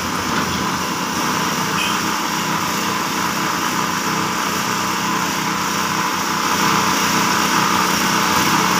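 Hyundai crawler excavator's diesel engine running steadily, a continuous mechanical drone.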